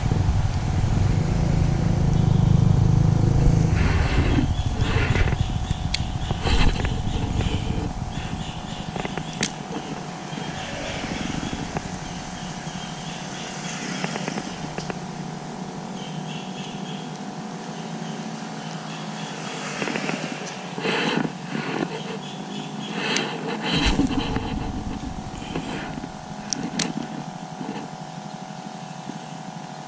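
Road traffic crossing the bridge overhead: a vehicle passes with a low rumble that is loudest in the first few seconds and then fades, leaving a steady background hum with scattered short clicks.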